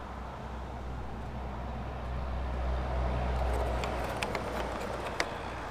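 Low rumble of a vehicle engine that swells through the middle and then eases off, with a few light clicks of plastic trim being handled in the second half.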